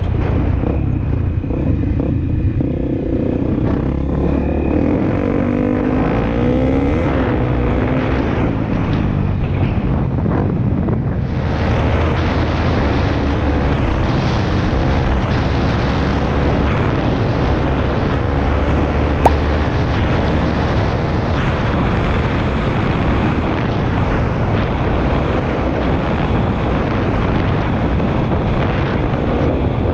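Honda CRF250L single-cylinder four-stroke engine running under way, its pitch rising and falling with the throttle. From about a third of the way in, wind buffeting on the microphone gets much heavier, with a single sharp click near the middle.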